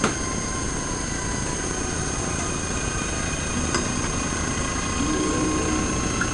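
Steady machine hum from running lab equipment, with a sharp click right at the start and a faint tick a little before four seconds in.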